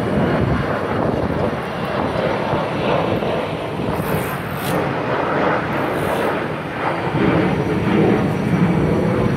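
Jet airliner flying overhead, its engine noise a steady rumble that grows a little louder in the last couple of seconds.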